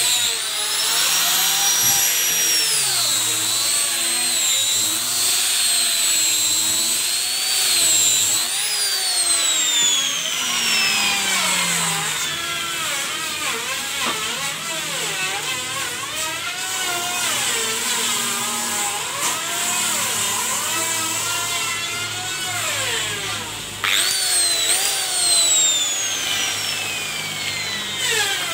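Maktec hand grinder fitted with 180-grit sandpaper, running and sanding teak. Its high motor whine wavers in pitch as the pad is worked against the wood, and twice slides sharply down in pitch as the motor slows.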